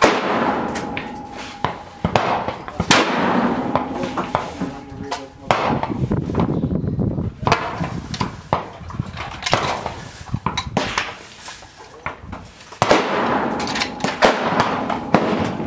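Several rifle shots a few seconds apart, each followed by a reverberant tail, with the metallic clack of a bolt action being cycled between them.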